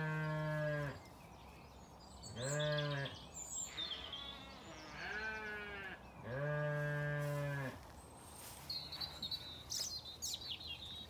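Zwartbles ewes bleating for their morning feed: four long, deep, steady bleats, the third fainter, followed near the end by a scatter of sharp clicks and knocks.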